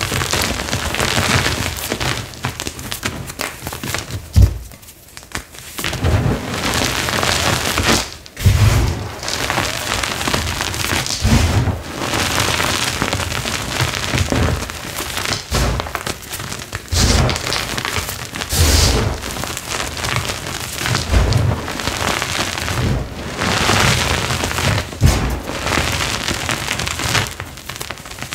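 Hands crushing and crumbling flaky, citric-acid-dyed gym chalk: a dense, dry crunching of many small breaks, with crumbs and powder falling back onto the pile. It eases off for about a second around 4–5 seconds in and briefly near 8 seconds.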